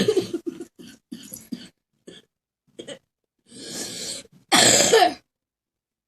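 A person coughing, with the loudest cough coming just before five seconds in.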